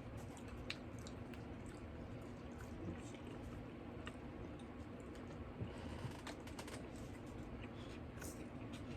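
Faint chewing and scattered small clicks from someone eating pizza, over a steady low hum.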